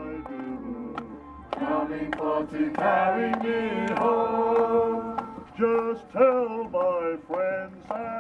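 A group of voices singing a slow song together, mostly male, coming in about a second and a half in as electronic background music fades out.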